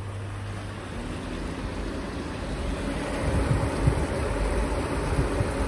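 Paint extractor fan running just after being switched on, a steady hum with a steady tone that sets in about a second in. Gusty low rumble builds in the second half.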